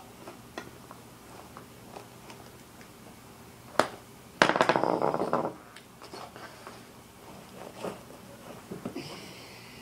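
A screwdriver working a BMX tyre bead off its rim: small clicks and knocks of metal on the rim, a sharp snap a bit under four seconds in, then a loud rapid rattling scrape lasting about a second.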